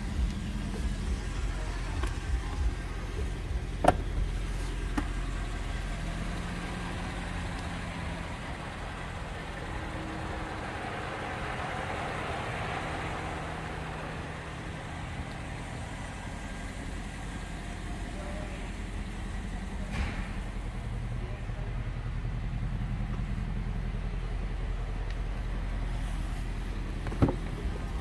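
Bentley Mulsanne's 6.75-litre twin-turbo V8 idling steadily with a low hum, and a few isolated clicks.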